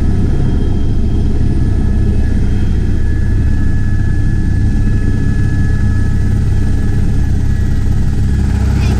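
Helicopter running steadily: a loud, unbroken low rumble with a faint steady whine above it.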